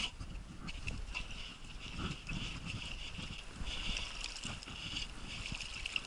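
Small boat being paddled through duckweed-covered water: irregular low sloshing and knocking of the paddle and hull in the water, with a steady high hiss behind it.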